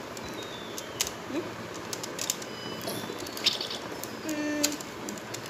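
Child's toy laptop being pressed: scattered key clicks with short, high electronic beeps, including a quick run of stepped beeps falling in pitch just after four seconds.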